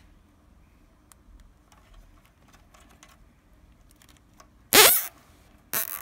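Nylon zip tie being cinched around a bundle of wires: faint clicks of handling, then two loud zips about a second apart near the end as the tie is pulled tight.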